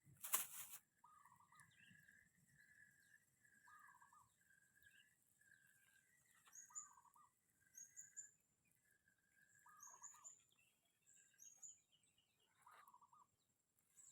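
A short knock just after the start, then faint birds calling: a run of repeated short whistled notes, with higher chirps now and then.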